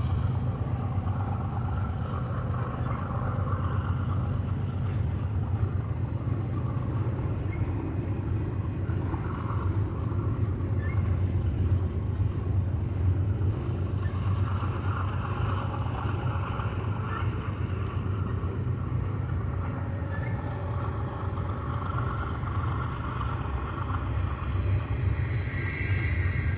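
Double-stack intermodal freight train rolling past: a steady low rumble of wheels and cars on the rails, with a high squeal coming in near the end.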